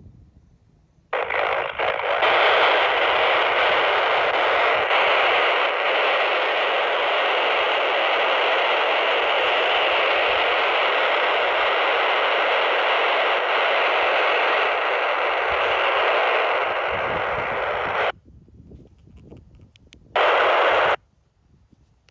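PNI Escort HP 82 handheld CB radio hissing with its squelch open: steady receiver static from a channel with no signal. It starts about a second in, cuts off suddenly well past halfway, and a second short burst of hiss comes near the end.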